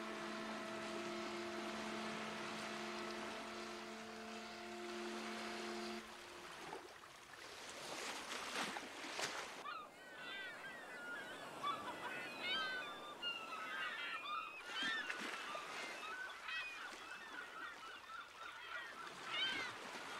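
A ship's horn sounds one long, steady low blast lasting about six seconds. After a short wash of water noise, a flock of seagulls cries over a harbour.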